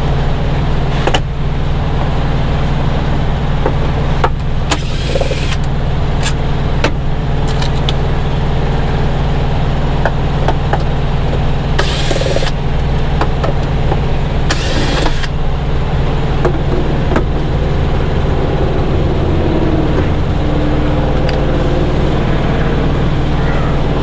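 Cordless drill with a Torx bit backing out door-panel screws in three short runs, with scattered clicks and knocks from the screws and panel, over the steady low drone of an idling engine.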